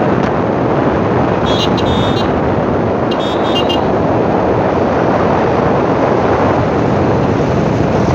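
Steady rush of wind and engine noise from a two-wheeler riding at speed on an open road. A vehicle horn sounds twice in short pulsing blasts, about a second and a half in and again about three seconds in.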